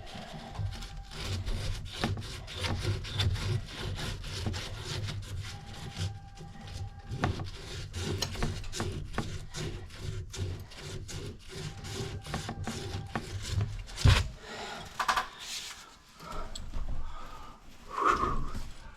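Hand-tool work: quick, repeated rubbing and rasping strokes on plumbing material. About fourteen seconds in it ends with a sharp knock, followed by scattered handling noises.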